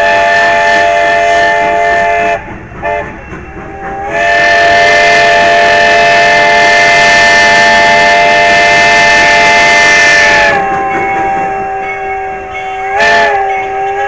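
Steam locomotive No. 11's multi-note chime whistle blowing a chord: one blast, a few short toots, then a long loud blast of about six seconds with steam hiss over it. The chord then carries on more softly, and a brief burst of hiss comes near the end.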